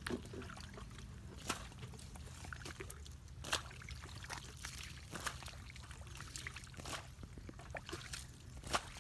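Muddy water sloshing and trickling as a plastic bucket scoops it up to bail out a shallow pool, with scattered short splashes and knocks.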